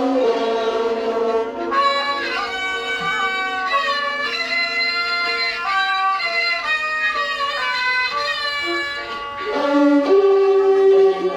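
Instrumental ensemble playing a Thai classical overture (homrong): a melody of held notes that slide between pitches, over a sustained lower note.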